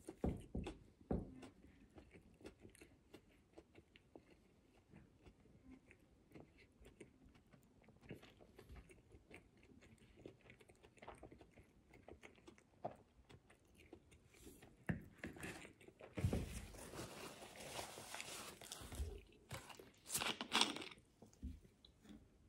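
Faint, close-up chewing of a soft-bread ham and cheese sandwich, with many small wet mouth clicks. A denser stretch of noise and a few louder knocks come near the end as a plastic soda bottle is handled and drunk from.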